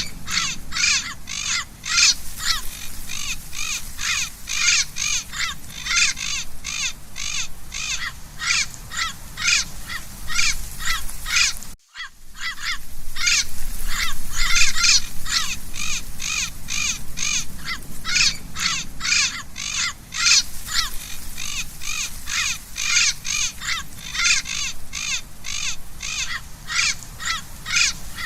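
Parrot calling over and over in short calls, about two to three a second, with a brief break about twelve seconds in.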